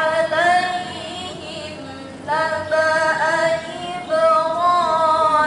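A young woman chanting Qur'an recitation (tilawah) in a melodic style into a microphone, with long held notes and ornamented turns. She sings two phrases with a short breath between them.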